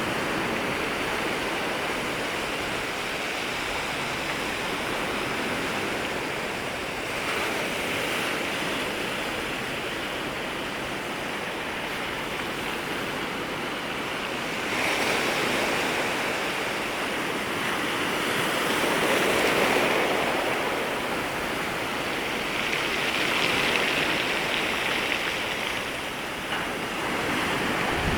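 Waves breaking and washing over the shoreline: a continuous rushing wash of surf, swelling louder with each incoming wave, about five times.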